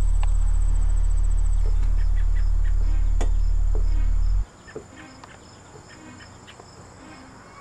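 A loud, steady low hum that cuts off abruptly about four and a half seconds in. It leaves a quiet outdoor background of insects chirping, a steady high trill with regular pulses, and a few short bird chirps.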